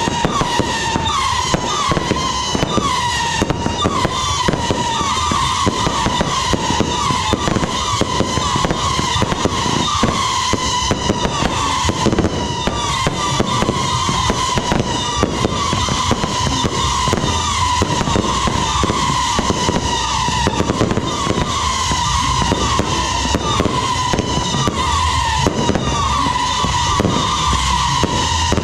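A continuous fireworks barrage of rising shells and fountains, firing without a break: a dense stream of short, repeated whistles over constant crackling and popping.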